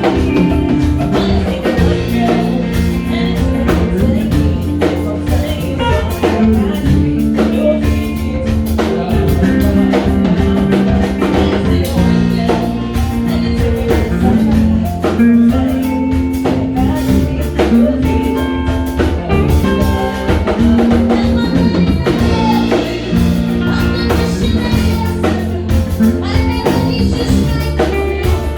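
A band playing a song, with drum kit, guitar and bass.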